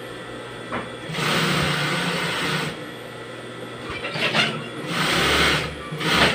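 JUKI industrial sewing machine stitching through heavy jacket fabric in short runs: about a second in for a second and a half, briefly near four seconds, and again from about five seconds in. Between runs a quieter steady hum remains.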